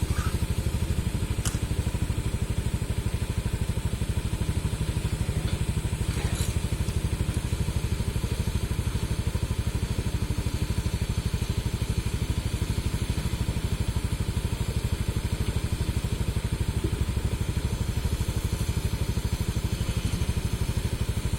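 Hitachi excavator's diesel engine running steadily at an even, low pulse.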